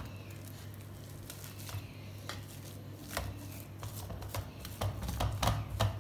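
Fork mashing boiled potatoes on a stainless-steel plate: irregular taps and scrapes of metal on metal, busier in the second half.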